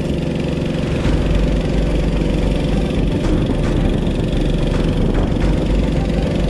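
An engine running steadily at an even pitch, like an idling motor.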